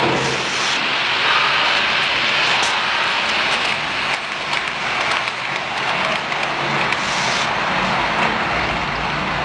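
HO scale model trains running on the layout: a steady whirring, rumbling mechanical noise of motors and wheels on track, with a brief higher hiss about half a second in and again later on.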